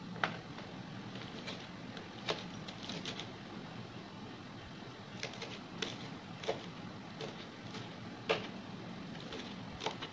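Kitchen knife slicing red chillies on a cutting board: irregular sharp taps of the blade hitting the board, with a low steady hum behind.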